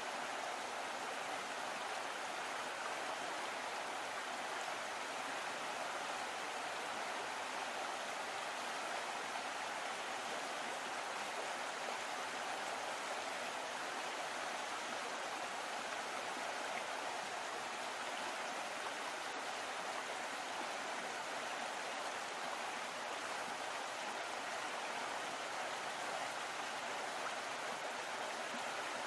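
Steady rush of water along the hull of a moving boat, an even hiss that does not change.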